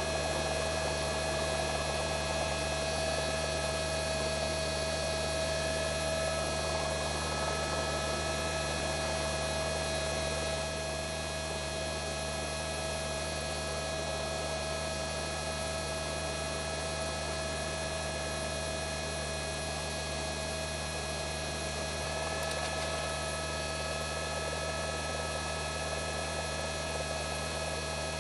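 A steady hum made of several held tones over a hiss, dipping slightly in level about ten seconds in.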